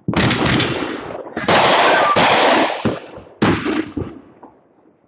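Fireworks going off: dense, rapid crackling and popping that starts abruptly and comes in several loud surges, loudest in the middle, then dies away about a second before the end.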